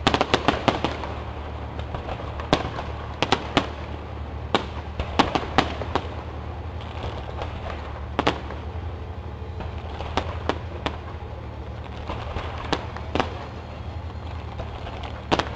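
Aerial fireworks shells bursting: sharp bangs at irregular intervals, a quick cluster of them at the start and more in twos and threes, over a continuous crackle.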